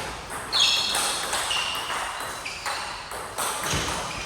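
Table tennis rally: a ball clicking sharply off bats and table several times, with short high squeaks between the hits.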